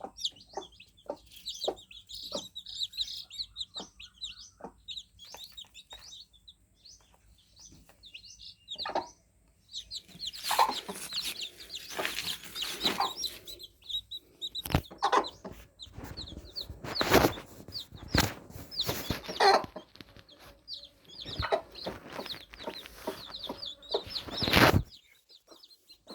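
Newly hatched chicks cheeping in many short high-pitched chirps, over a regular run of short, low clucking sounds. From about ten seconds in, loud rustling and knocking noises take over, with cheeps still among them, and they cut off abruptly shortly before the end.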